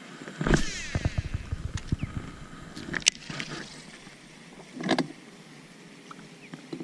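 A cast with a fishing rod: a swish and a short whir of line running off the reel just after the start, with a run of small ticks. A louder knock comes about five seconds in.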